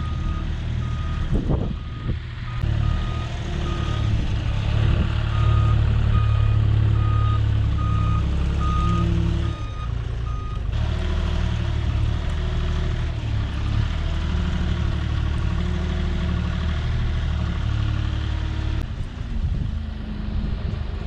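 Heavy vehicle's reversing alarm beeping about once a second over the rumble of its running engine. The beeping stops about ten seconds in, and the engine runs on with its pitch rising and falling.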